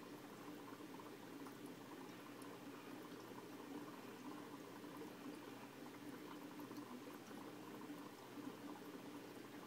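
Faint, steady bubbling and trickling of aquarium water.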